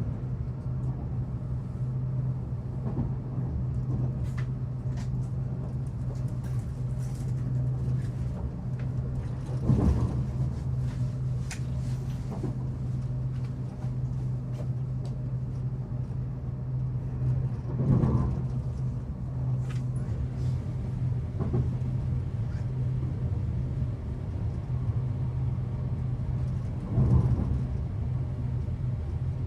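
Interior of a Hitachi AT300 electric multiple unit running along the line: a steady low rumble and hum, with scattered light ticks and creaks. The rumble swells briefly three times, about eight seconds apart.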